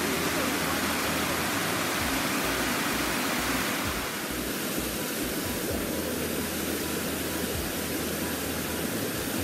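Small waterfall cascading over rock into a pool: a steady rushing of water, a little softer from about four seconds in.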